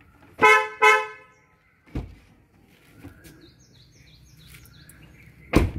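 Two short horn beeps from a Kia Sonet as its doors unlock from the request button on the door handle. A thump follows about two seconds in, and a louder one comes near the end.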